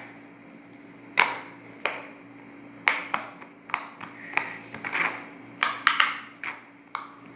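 Silicone Pop-It fidget toy bubbles being pressed through one after another, giving about a dozen short sharp pops at an uneven pace.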